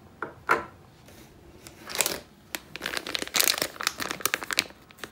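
Plastic packaging of a new ink cartridge crinkling as it is handled: two short rustles, then a dense run of crackles through the second half.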